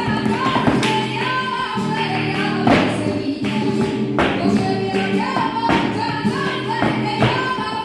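Live flamenco: a voice singing long, wavering lines over a Spanish guitar. A dancer's heels stamp on a wooden dance board, with several sharp strikes.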